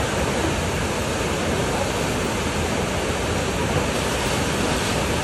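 Rushing whitewater of a river's standing surf wave, a steady, unbroken noise.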